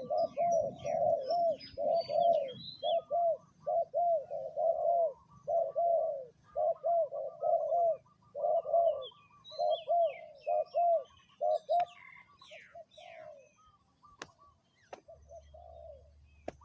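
Spotted dove cooing, a long run of repeated low, rounded coo notes that thins out to a few scattered notes about twelve seconds in. Small birds chirp higher up, and a few sharp clicks come near the end.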